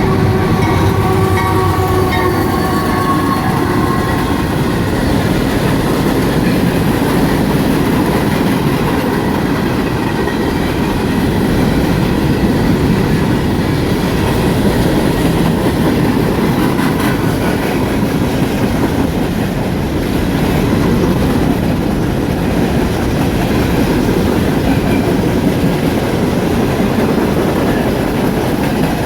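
Empty CSX coal hopper train rolling past behind a lone GE AC4400CW, a steady continuous rolling rumble of the cars on the rails. The last of the locomotive's horn fades away over the first few seconds.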